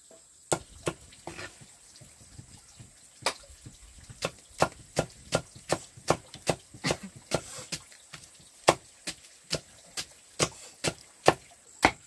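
Machete chopping peeled roots into slices on a wooden block: sharp knocks, two to three a second, with a short pause after the first few strokes.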